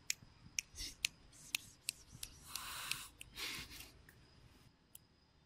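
A person calling a cat with a string of sharp mouth clicks, about two a second, and two short hissed "psst" sounds near the middle.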